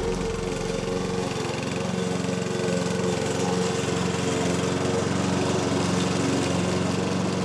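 AL-KO Classic 4.66 petrol lawn mower's engine running steadily under load as it is pushed through long grass. A low bass tone fades out in the first second or so.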